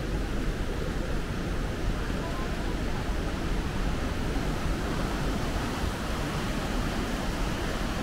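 Kegon Falls, water plunging and rushing in a steady, unbroken noise with a strong low rumble.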